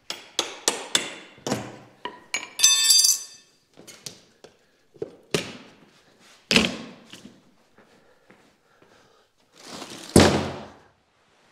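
Hammer and pry work on the nailed lid of a long wooden shipping crate: a run of sharp knocks and wooden clunks, a short ringing scrape about two and a half seconds in, two heavy knocks around the middle, and a loud thud about ten seconds in as the freed lid boards are put down.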